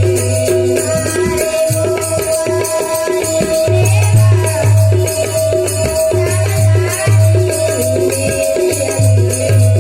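Bhajan music without voices: a harmonium playing a melody over jingling hand percussion and a steady low beat.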